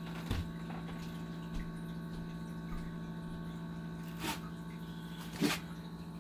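A steady low hum, with a few soft knocks and rustles about a second in, near four seconds and near the end.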